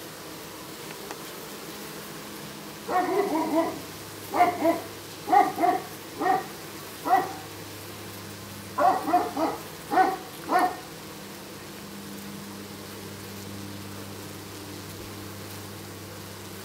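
A dog barking, about a dozen short barks in two runs with a pause about eight seconds in, over a low steady hum.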